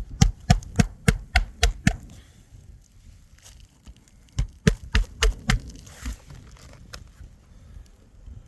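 Hammer blows driving roofing nails into a replacement shingle: a quick run of about eight strikes, a pause of about two seconds, then about five more.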